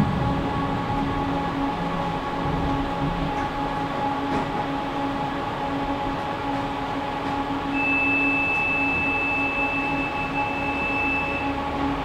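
Tram running along its track, heard from inside the car: a steady rumble of wheels on rails under an even electric motor hum. About eight seconds in, a high thin whine comes in and holds for a few seconds before cutting off.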